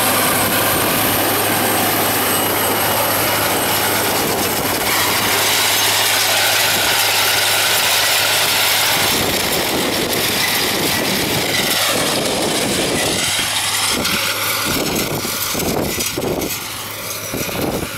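Diesel engine of a Caterpillar Challenger MT865C tracked tractor working under load while pulling a TopDown cultivator, passing close by and then moving away. It grows a little quieter near the end.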